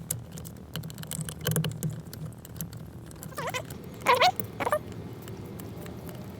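Star-head (Torx) screws being undone behind a Toyota MR2 steering wheel's airbag: a few light tool clicks, then three short squeaks as the screw turns, about three and a half, four and four and a half seconds in.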